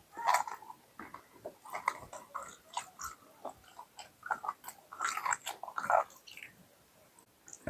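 A person eating mutton curry with roti close to the microphone: irregular biting and chewing sounds, fading out near the end.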